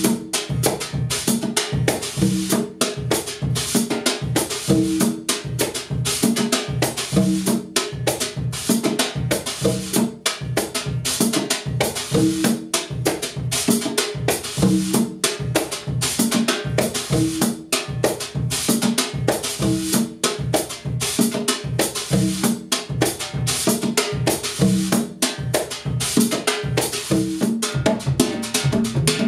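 Songo groove on a hybrid drum kit: one hand plays quarter notes across two congas with open and slap tones, the other plays a brush on the snare drum with swishes, and the bass drum keeps a tumbao ostinato. The pattern repeats steadily throughout.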